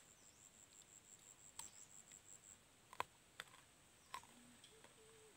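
Near silence, with a few faint sharp clicks and a faint high pulsing buzz in the first half. A faint low hum starts near the end.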